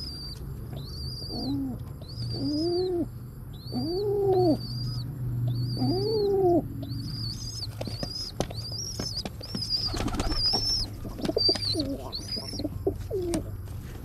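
Rock pigeons at the nest. An adult gives several low coos in the first half while a thin, high squeak repeats about once a second. From about halfway the squeaks come faster among quick rustles and wing flutters as the squabs beg and the parent feeds them.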